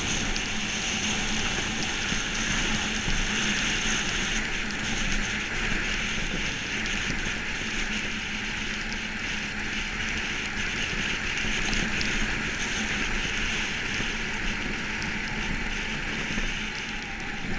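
Steel runners of a Monotype XV iceboat skating fast over lake ice, a steady hiss and crackle with a low hum underneath.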